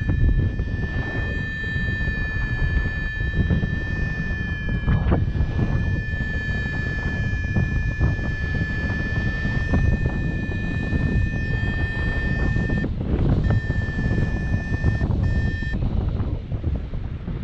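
Airflow buffeting the microphone in flight, with a paragliding variometer's continuous sink tone sounding steadily over it. The tone breaks briefly and then stops about two seconds before the end. A steady tone like this marks descent, here through sinking air.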